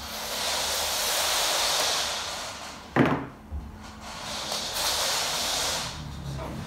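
Long spiral binding wire rattling and scraping as it is pulled and dragged over a wooden table, in two long hissing stretches, with a sharp knock about three seconds in.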